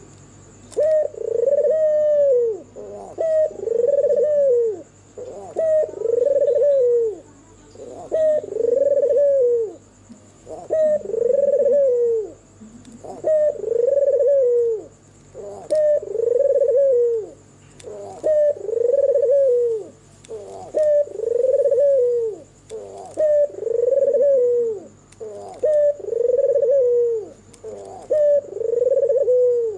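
White, red-eyed (albino) puter dove (ringneck/Barbary dove) in its display cooing, manggung: a long run of rolling coos, each about a second and a half, repeated steadily every two seconds or so.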